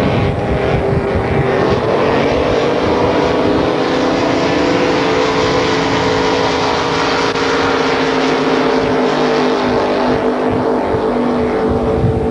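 Supercharged racing powerboat engines running at high revs, a loud steady drone whose pitch holds nearly level.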